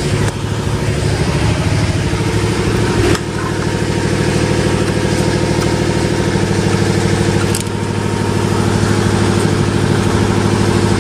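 Bajaj Avenger motorcycle engine idling steadily at a low, even beat, with a brief click about eight seconds in.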